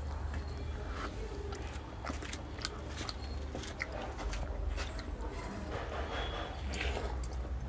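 Close-up eating sounds: a person chewing and smacking through soaked rice (pakhala) and chicken curry, with many short wet clicks scattered throughout, over a low steady hum.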